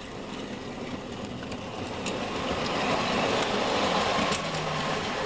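Hornby K1 OO-gauge model train running on the track: motor hum and wheels rolling over the rails with small ticks. It swells as the train passes, loudest about three to four seconds in, and eases off a little near the end.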